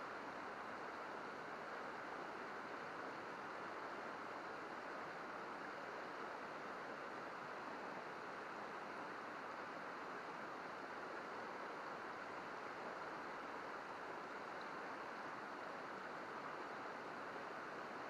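Shallow mountain river babbling steadily over rocks and riffles.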